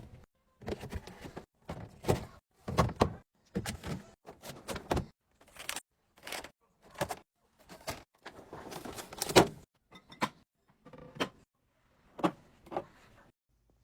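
Restocking handling sounds: packages and containers being set down and shuffled into place, with knocks, clacks, rattles and short sliding sounds coming one after another in quick succession.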